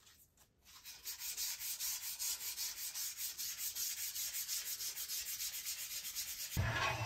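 Fingertips rubbing gold embellishing wax into the grain of an ebonized ash platter's face: quick, even rubbing strokes, several a second, starting about a second in. A louder, fuller noise cuts in near the end.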